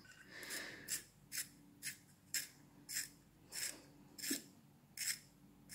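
A pencil being sharpened: a run of short rasping scrapes, about two a second, with the first one a little longer.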